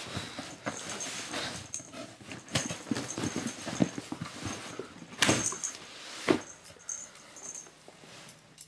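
A cardboard shipping box being opened by hand: knocks, scrapes and rustling of cardboard and packing tape, with the loudest tearing rip about five seconds in.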